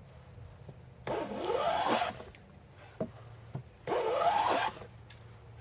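Hand plane taking two strokes along a wooden panel, each a rasping hiss of the blade cutting a shaving just under a second long, with a couple of light knocks between them.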